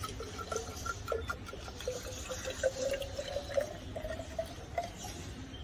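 Thin stream of water pouring from a two-stroke motorcycle power box (resonator) through its outlet pipe into a narrow glass measuring beaker. The filling tone rises slowly in pitch as the beaker fills.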